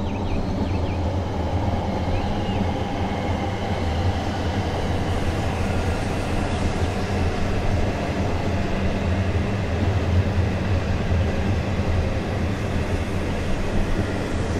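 Fujisan View Express electric train of the Fujikyu Railway running past close by: a steady noise of wheels on rails and passing carriages.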